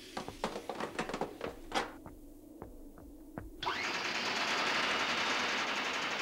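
Animated-film sound effects: a run of irregular metallic clicks and knocks, then, about three and a half seconds in, a loud steady hiss that cuts off suddenly at the end.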